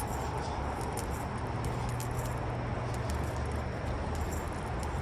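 Steady low background hum with faint, scattered light clicks and jingles.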